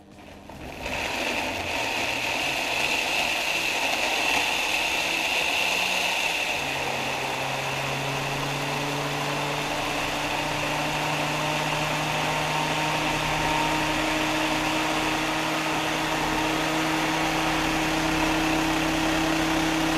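Small countertop blender's motor running continuously, pureeing red chillies, ginger, garlic and hot stock into a smooth chilli paste. It starts about a second in, and a steady low hum sets in about six and a half seconds in.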